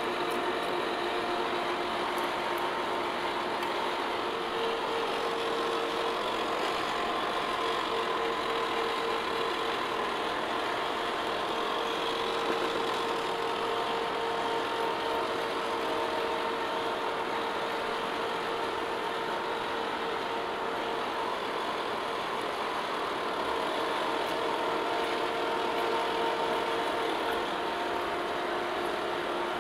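Lucas horizontal boring mill running with a large drill cutting through 4-inch-thick steel plate: a steady machine hum with a few held tones and cutting noise, unchanged throughout.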